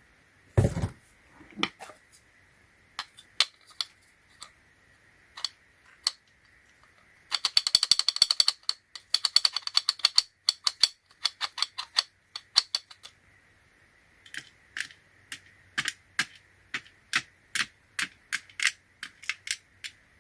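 Small hard clicks and taps of a Torx screwdriver being worked in its magnetizer-demagnetizer tool: scattered single ticks, a fast rattling run of clicks for several seconds in the middle, then a steady series of separate ticks near the end.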